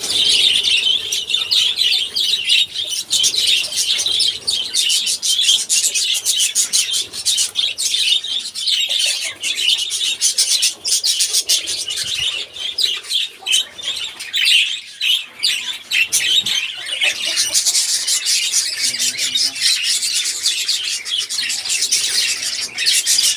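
A large flock of lovebirds chattering: a dense, continuous din of rapid, high-pitched chirps and squawks.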